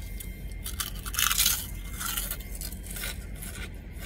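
A ridged Ruffles potato chip is bitten with one loud crunch about a second in, then chewed with several smaller crunches about every half second.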